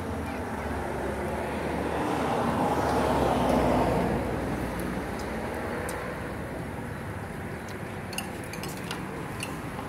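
Metal forks and spoons clinking on plates and the grill pan a few times near the end, over a steady background rush that swells and fades about three seconds in.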